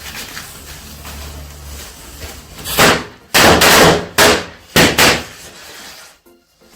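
Red bijli firecrackers going off one after another: about five loud bangs packed between roughly three and five seconds in.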